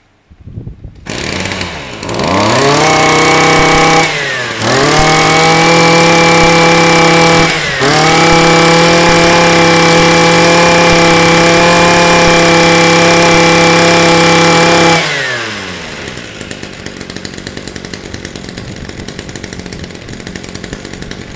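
Ryobi EKK-2370 23 cc two-stroke brush cutter engine pull-started, catching about a second in and revving up to a high steady speed. It dips sharply twice as the throttle is let off and opened again, then drops back to a steady idle about 15 seconds in.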